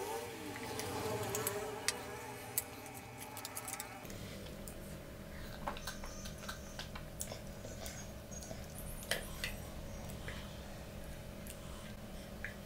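Close-miked drinking and mouth sounds: a person swallowing orange soda from a glass, with small clicks and clinks. A faint steady hum runs under it from about four seconds in.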